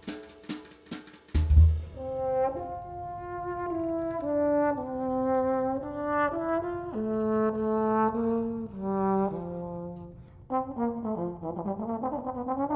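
A few drum hits, then a solo trombone plays a slow melody of held notes stepping up and down, turning to sliding swoops of pitch near the end.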